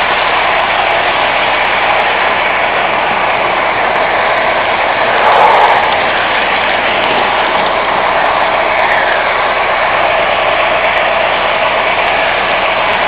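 O-gauge model subway train running on three-rail track: a steady whir and clatter of its motors and wheels, briefly louder about five seconds in.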